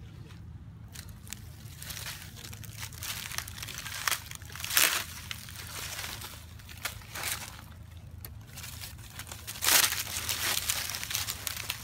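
Close rustling and crackling as a monkey brushes against and handles the camera, with two loud scratchy bursts, about five and ten seconds in.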